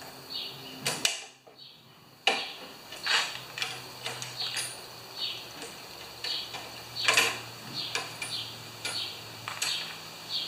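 Irregular metallic clicks and clinks of pliers working a steel stop cable at a lawn mower's handle, the loudest about seven seconds in, over a faint steady hum.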